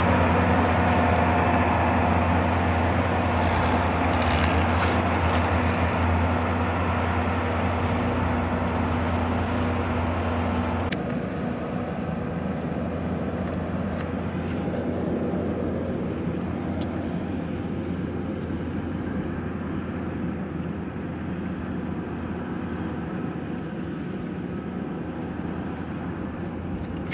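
Massey Ferguson 7620 tractor's six-cylinder diesel engine running steadily under load as it pulls a five-furrow plough. The sound turns abruptly duller and quieter about a third of the way in, then slowly fades.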